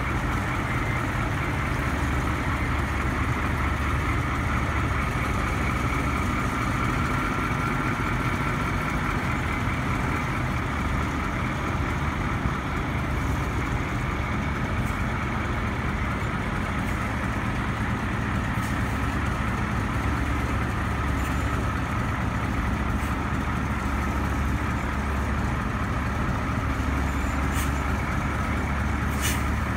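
Diesel engine of a Ford C-series E-One fire truck running steadily at low speed, with a few sharp clicks near the end.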